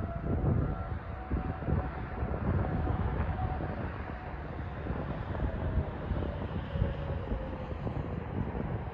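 Outdoor tornado warning siren sounding faintly in the distance, a thin steady tone that sinks slightly in pitch near the end, under a louder low rumble.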